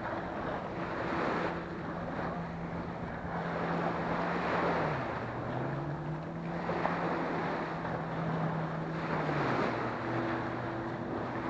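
Small waves breaking and washing up a sandy beach in repeated surges, with wind buffeting the microphone. Under it a motor hums steadily; its pitch dips about five seconds in, comes back up, and drops again near the end.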